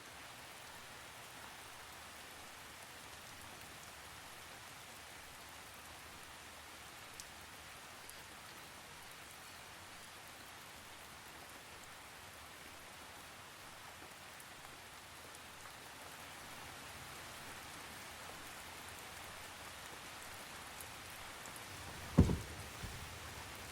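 Steady light rain hissing, with one low thud near the end.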